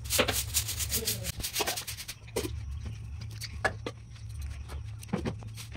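Scratchy strokes of a soft broom sweeping a concrete floor, quick and close together in the first second, then scattered single strokes, over a steady low hum.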